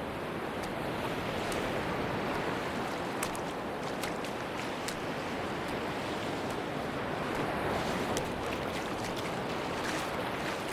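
Sea waves washing onto a beach: a steady surf wash that swells gently, with faint sharp ticks scattered through it.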